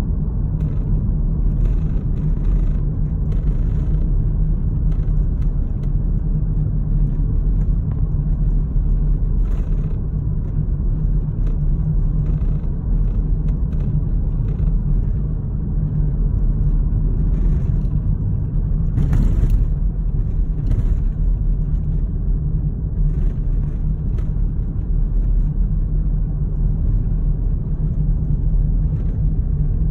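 Road noise inside a moving car's cabin: a steady low rumble of tyres and engine, with a few brief faint clicks or rattles now and then, the clearest about two-thirds of the way through.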